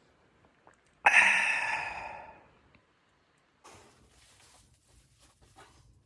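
A single loud breathy exhale, like a sigh, starting suddenly about a second in and fading out over about a second and a half. Soft rustling and small clicks follow.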